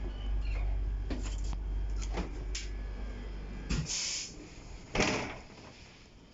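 TER regional train: a low rumble with scattered clicks and knocks stops about two-thirds of the way through. Then come two short hisses of compressed air, about a second apart, the second the loudest.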